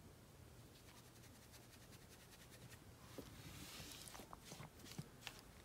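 Near silence with faint rustling and small clicks, a little louder in the second half, like close handling of fabric or objects.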